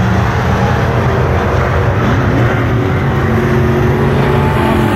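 Several dirt-track race car engines running hard on the oval, their pitches rising and falling as the cars lap.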